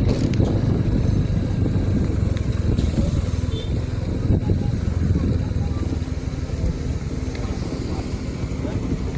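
Motorcycle engine running steadily under way, a low rumble mixed with road noise.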